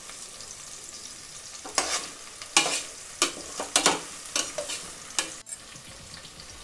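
Onions, shallots and curry leaves sizzling in hot oil. In the middle a metal slotted spoon stirs them, scraping and clattering against the metal pot in several sharp strokes.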